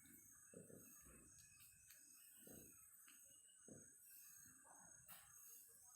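Near silence: faint outdoor background with a steady high-pitched insect trill and a few soft low thumps.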